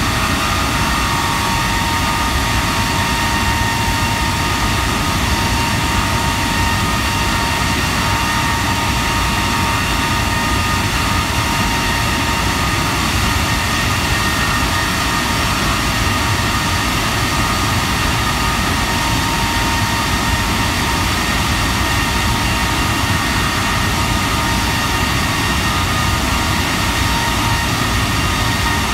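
Rolls-Royce Trent 895 turbofan on a Boeing 777 running steadily on the ground during an engine run. The engine noise stays even, with several high whining tones held at a constant pitch.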